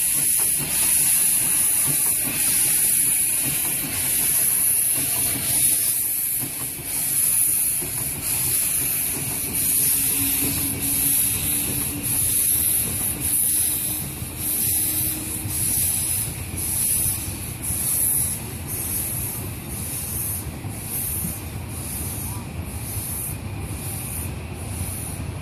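Narrow-gauge steam locomotive pulling away, its exhaust chuffing in a slow, even beat of about one hissing chuff a second. The chuffs fade in the second half as the coaches rumble past.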